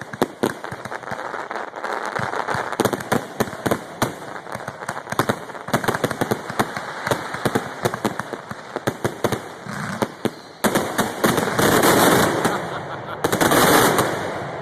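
Fireworks finale barrage: a rapid, dense string of bangs and cracks firing many times a second. Near the end, two loud swells of continuous noise rise under the bangs.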